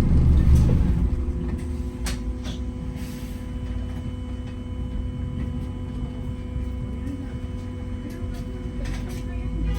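Interior of a Wright Gemini 2 hybrid double-decker bus: a low engine rumble dies away about a second in, leaving a steady electric hum with a couple of light clicks.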